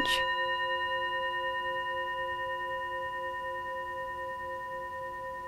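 Bell-like ringing tone in the background music: several steady notes held together, fading slowly with a gentle waver.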